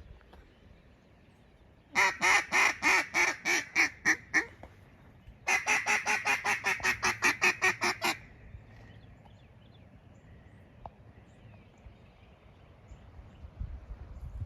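Mallard duck call blown in two runs of rapid quacks, about a dozen loud notes in each run, with a pause of about a second between the runs.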